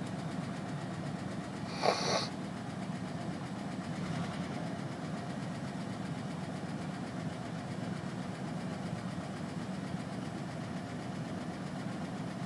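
1999 GMC Safari's 4.3-litre V6 running steadily at a low, even hum, with one brief sharp noise about two seconds in, one of the van's unexplained strange noises.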